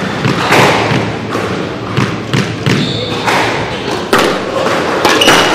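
Irregular thuds of squash balls striking rackets and court walls, about ten hits at uneven intervals, over a steady background murmur of the hall.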